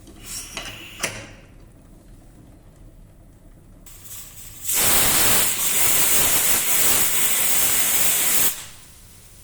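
A few sharp clicks, then a pressure cooker venting steam in a loud, even hiss for about four seconds that cuts off suddenly.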